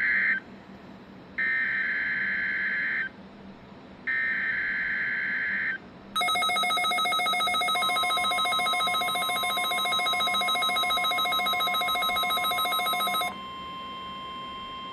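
NOAA Weather Radio alert test received on weather radios: the first SAME digital header burst ends, then two more harsh two-tone data bursts of about 1.7 s each follow with short gaps. About six seconds in, the receivers' alert alarms go off with a pulsing, many-toned beep for about seven seconds, and a steady single tone joins about two seconds later and runs on after the alarms stop.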